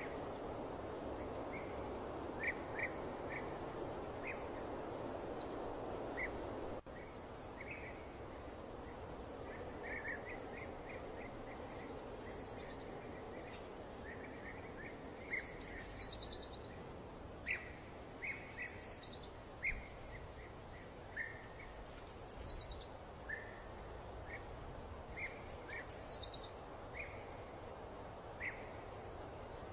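Birds singing over a steady background hiss: scattered short chirps, and from about twelve seconds in a high call that falls in pitch, repeated every three to four seconds. The hiss drops abruptly about seven seconds in.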